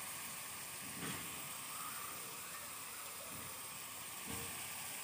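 Sliced onions sizzling gently in hot oil in an iron kadai, a steady low hiss as they slowly brown.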